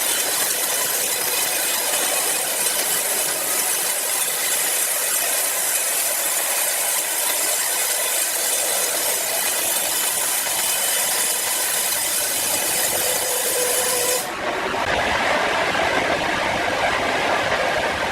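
Large power saw cutting steadily through wood, a continuous hissing noise. About fourteen seconds in the sound changes abruptly, losing its hiss and turning lower and rougher, and then carries on steadily.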